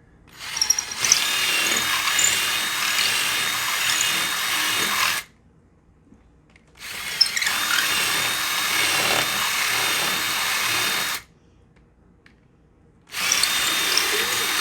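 Electric drill run three times for several seconds each at a steady speed with a high whine, pausing briefly between runs: reaming out the drilled hinge screw holes in the door jamb so the wooden dowels fit.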